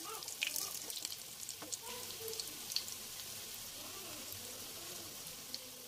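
Breadcrumb-coated potato patties shallow-frying in hot oil in a pan: a faint, steady sizzle with scattered small crackles.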